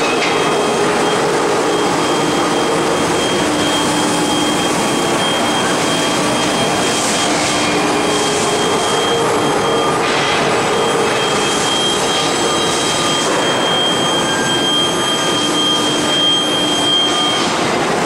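Rebar induction heating line running: a steady, loud industrial noise with a high steady tone that drops out briefly a couple of times, and lower hums beneath it.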